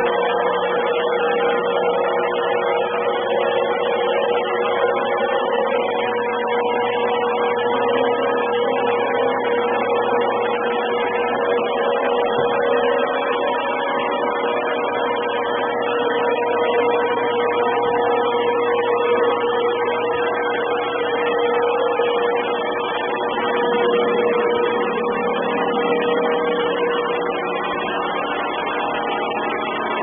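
Robot vacuum cleaner running: a steady motor and suction hum with a constant whine in it, heard very distorted through the camera's microphone.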